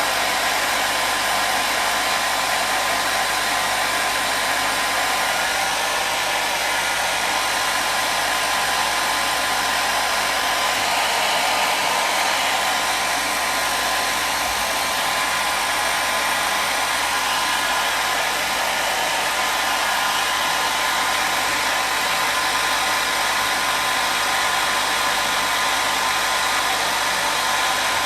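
Hair dryer running steadily: an even, unbroken rushing hiss with a faint steady whine, used as white noise.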